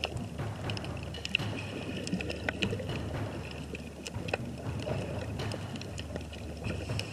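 Underwater sound heard through an action camera's waterproof housing: a muffled low rumble of moving water with many scattered sharp clicks and crackles.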